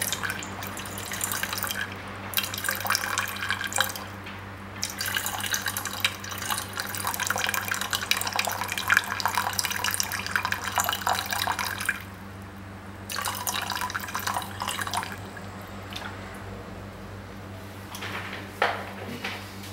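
A stream of urine splashing into a plastic bottle. It comes and goes, breaking off briefly twice and weakening near the end, over a low steady hum.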